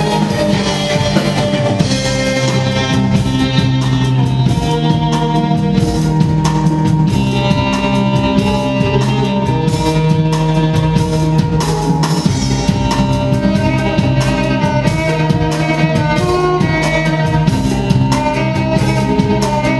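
Rock music played by an orchestral ensemble: bowed strings over a drum kit with a steady beat, and some guitar.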